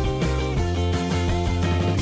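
Background music: a rock track with guitar over a steady beat.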